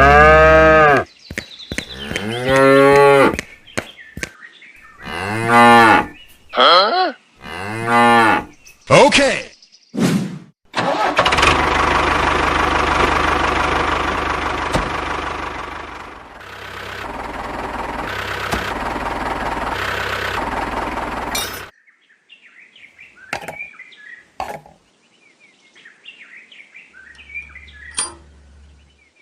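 Cattle mooing, about six calls in the first ten seconds, each rising and falling in pitch. Then a steady rushing noise for about ten seconds that stops suddenly, followed by a few faint clicks.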